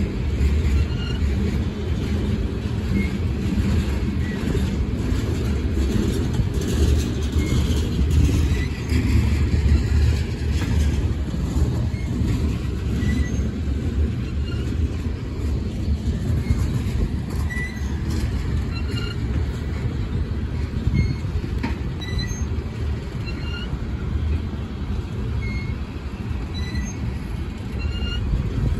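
Coal cars of a long Union Pacific coal train rolling past, their steel wheels on the rails making a steady low rumble.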